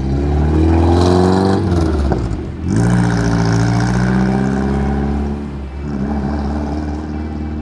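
VW Beetle with a swapped-in Subaru boxer engine pulling away under acceleration, the engine note rising, dropping at a gear change about two and a half seconds in, rising again and shifting once more near the end as the car draws off.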